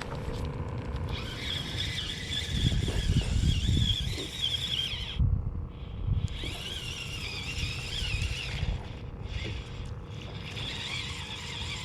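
Fishing reel being cranked in three stretches, each a wavering high whine, over a steady low hum and low rumble.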